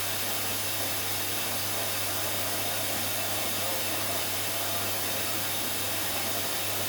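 Hoover washing machine taking in water for the second rinse: a steady rush of water from the inlet with a low, even mains hum.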